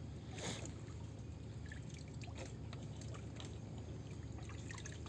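Light water splashing and scattered small clicks and taps as hands pick live shrimp off a wet fiberglass boat floor, with a louder splash about half a second in, over a low steady hum.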